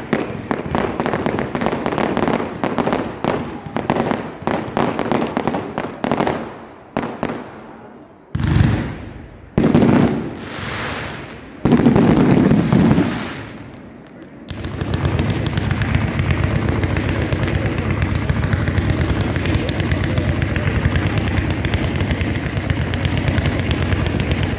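Fireworks display: a rapid string of crackling bangs, then three heavy booms with long rumbling decays around the middle, then a continuous dense crackle of many small reports to the end.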